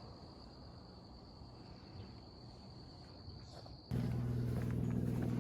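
A faint, steady, high-pitched insect trill over low outdoor noise. About four seconds in it is cut off abruptly by a loud, steady, low hum with a few even overtones.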